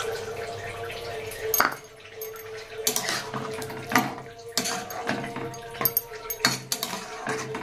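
Water pouring into a steel kadai of curry for about the first second and a half, then a metal spatula stirring and scraping, knocking against the pan's sides about every half second, over a steady hum.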